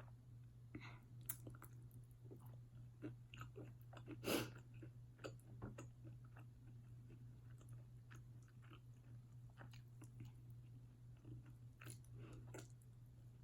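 A person chewing and biting a barbecue-sauced KFC chicken wing close to the microphone: irregular wet mouth clicks and smacks, with one louder bite about four seconds in.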